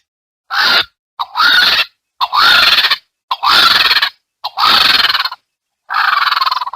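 Vulture giving a series of six harsh, rasping calls, each under a second long, with a rising tone running through the rasp; the calls are separated by short silent gaps.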